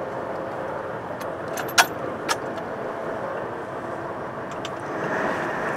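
Lifeboat engine running steadily under the wash of the sea, with two sharp clicks close together about two seconds in. The rushing noise swells near the end.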